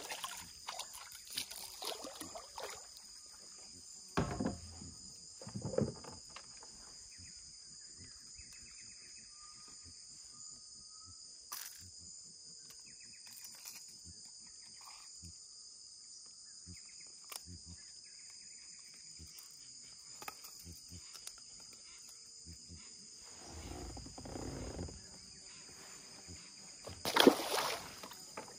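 Steady high-pitched insect chorus, with scattered knocks and water sounds from the kayak and paddle, the loudest near the end.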